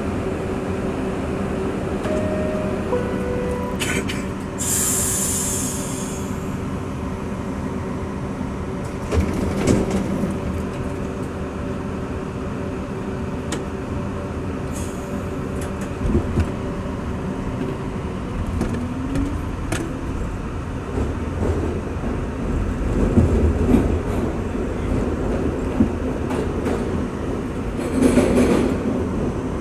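New York City R62A subway car running, heard from inside: a steady rumble of wheels on rail with a hum and scattered sharp clicks. A brief high hiss comes about five seconds in, and a short rising whine near twenty seconds in.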